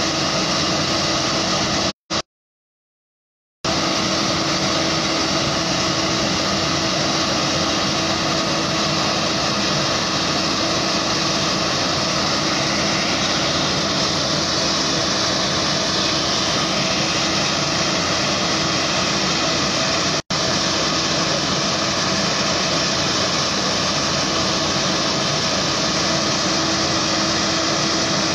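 Fire engine running steadily at a fire scene: a constant engine hum under a loud rushing noise. The sound cuts out completely for about a second and a half a couple of seconds in, and again for an instant about twenty seconds in.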